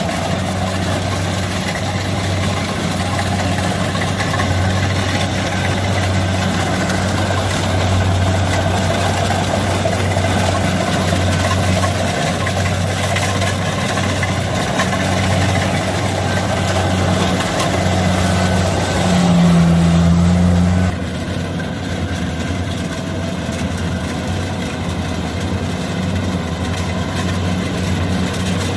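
Heavy farm machinery's diesel engine running steadily. About nineteen seconds in it rises in pitch, then a couple of seconds later it drops back and runs a little quieter.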